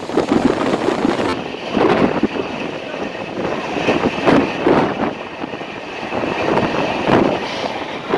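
A moving passenger train's running noise: a steady rush of wind and rumble, with occasional knocks from the wheels and coach. The high hiss drops away about a second and a half in.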